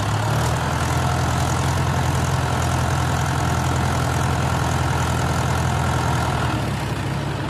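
Diesel engines of two Mahindra tractors, a 475 DI and a Yuvo 415, running steadily as they pull against each other in a tractor tug of war, easing slightly near the end.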